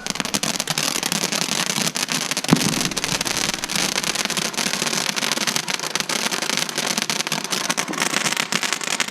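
Firecrackers popping in a rapid, continuous crackle, with one louder bang about two and a half seconds in.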